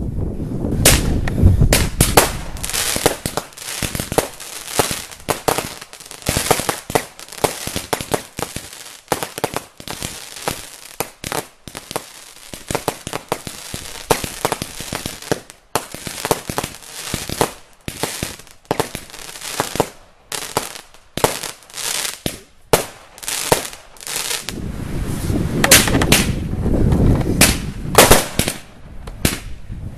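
Consumer firework batteries firing a fast, irregular run of bangs and crackling bursts: four Weco Alligator cakes, then, from about three-quarters of the way through, Jorge Wenus and Orinoko cakes.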